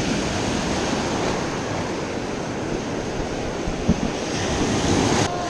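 Ocean surf breaking and foaming in the shallows, a steady rushing wash of water.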